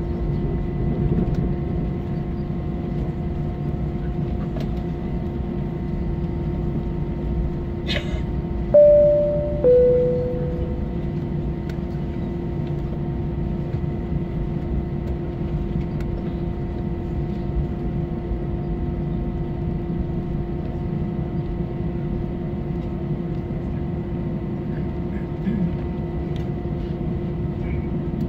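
Steady cabin noise inside an Airbus A321 taxiing: the engines and cabin air make a low rumble with a constant hum. About eight seconds in, a click is followed by the two-tone high-low cabin chime, which rings out and fades.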